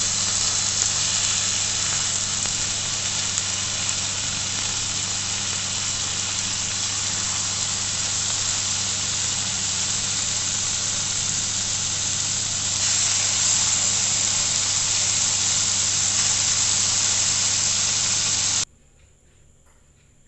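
Mutton steak slices sizzling in foaming melted butter in a frying pan: a steady hiss over a steady low hum, a little louder from about two-thirds of the way in. The sound cuts off suddenly near the end.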